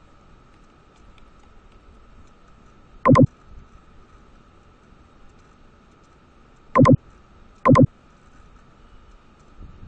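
Computer mouse clicks very close to the microphone, each a quick press-and-release pair: one a few seconds in, then two about a second apart later on. A faint steady whine runs underneath.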